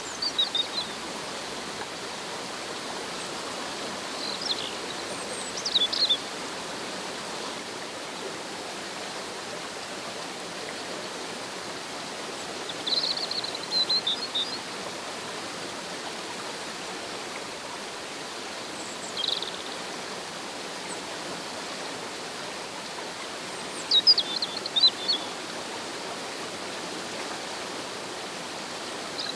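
Steady rush of a shallow river tumbling over a small waterfall, with short high bird chirps breaking in every few seconds, the loudest cluster about 24 seconds in.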